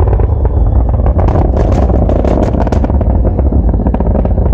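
SpaceX Falcon 9 first stage's nine Merlin 1D engines heard from the ground as a loud, continuous deep rumble with crackling, the crackle thickest about one to three seconds in.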